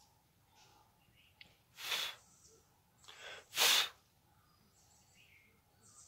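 A person's breath close to the microphone: two short, loud, breathy puffs about a second and a half apart, the second louder, typical of a sniff or snort.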